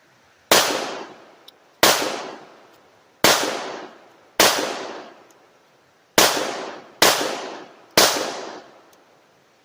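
Semi-automatic pistol fired seven times in slow, uneven succession, each sharp shot followed by a short echo that dies away. The shots come quicker toward the end.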